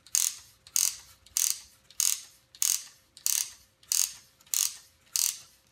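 Wooden ratchet of the Ugears Truck UGM-11 rubber-band motor clicking as the winding lever on top of the cab is turned stroke by stroke, winding up the rubber band. Nine short bursts come at an even pace, about one every 0.6 seconds.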